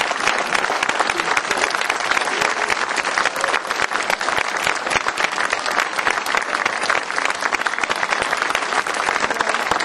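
A crowd applauding steadily: many hands clapping at once, without a break.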